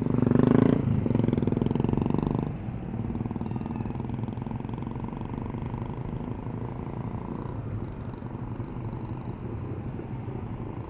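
Yamaha Aerox 155 scooter's single-cylinder engine running while riding through traffic, with road and wind noise. A much louder stretch with steady tones fills the first two and a half seconds and cuts off abruptly, then the engine runs on at an even level.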